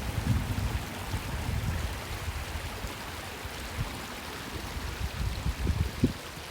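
Steady rush of small sea waves washing on the shore, with irregular low thumps.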